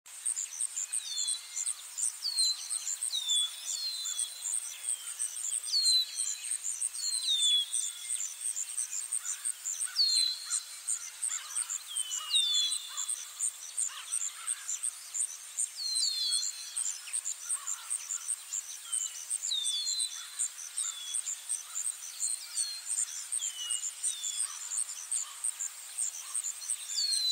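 Insects keep up a steady, high, fast-pulsing trill while a bird repeats short, falling chirps at uneven gaps of a second or two.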